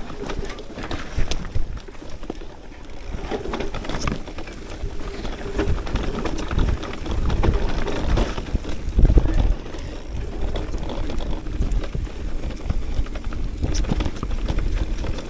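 Mountain bike riding down a rough, slippery trail: tyres running over dirt and rock, with constant irregular rattling and knocks from the bike, heavier about halfway through.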